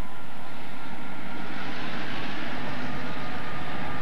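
EMD GP9 diesel-electric locomotives, with 16-cylinder two-stroke 567 engines, working under load as the train pulls away, giving a loud, steady engine drone.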